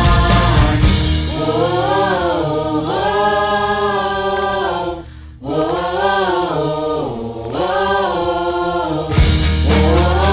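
Background music with sung, choir-like vocals holding long notes. A drum beat drops out about a second in, the music breaks off briefly midway, and the beat returns near the end.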